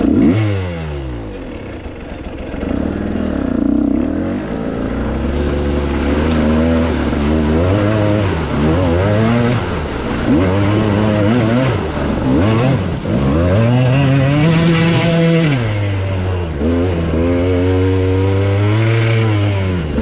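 Dirt bike engine revving up sharply at the start, then rising and falling in pitch with throttle and gear changes through a river crossing. Water sprays and splashes off the bike through the middle of the crossing.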